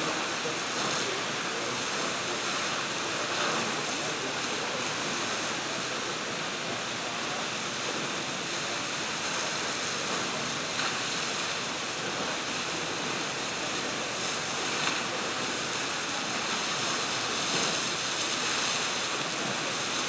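Tall single-jet fountain shooting water about 25 metres high, with a steady rush of spray falling back into its basin.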